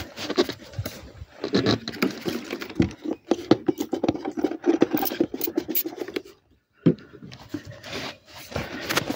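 Close handling noise of a phone: irregular rubbing and scraping with scattered clicks, broken by a short pause about two-thirds of the way through.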